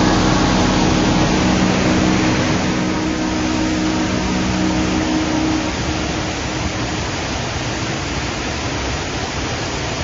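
Steady rush of a waterfall and stream. Sustained notes of background music fade out about halfway through.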